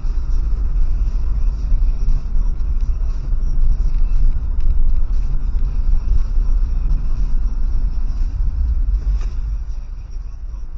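Steady low road rumble of a car driving, picked up by a dashcam inside the car, a little quieter for the last second or so.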